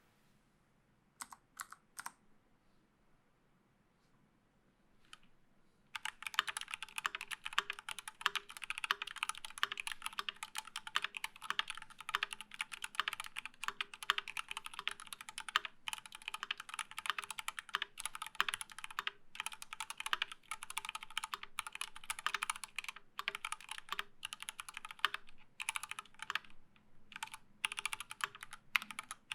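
Typing on a Rama KOYU Tank mechanical keyboard with unlubed Everglide Coral Red linear switches, GMK keycaps and no sound dampening. A few separate key presses come first, then continuous fast typing from about six seconds in.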